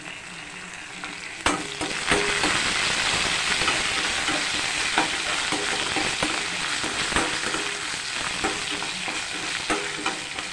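Sliced onions and curry leaves sizzling in hot oil in a nonstick kadai while a perforated steel skimmer stirs them, scraping and clicking against the pan: the tempering (thalippu) for sambar. The sizzle jumps louder about a second and a half in.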